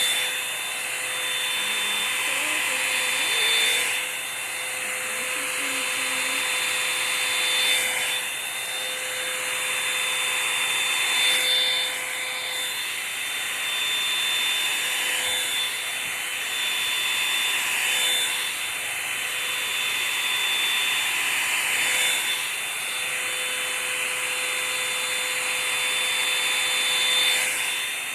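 Revlon One Step hot-air brush dryer running steadily: a rush of blown air with a high motor whine, its level swelling and dipping every few seconds.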